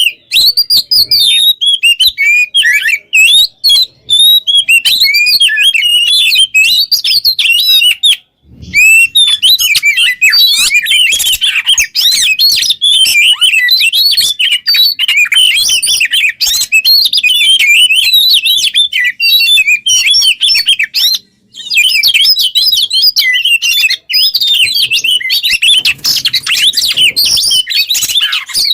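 An Oriental magpie-robin (kacer) singing fast and without stopping: a dense run of varied chirps, whistles and trills, high-pitched. It pauses briefly twice, about eight seconds in and again about twenty-one seconds in.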